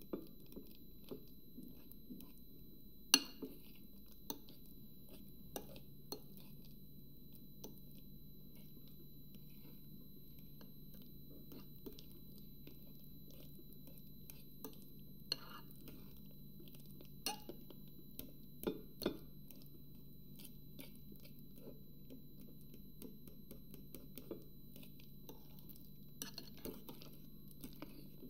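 Metal fork mashing ripe bananas in a glass bowl, its tines clinking against the glass now and then. There is one sharp clink about three seconds in, and a cluster of louder clinks around the middle.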